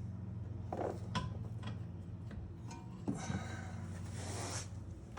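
A few light clicks and knocks and a brief scraping rub about three seconds in, from parts and tools being handled, over a steady low hum.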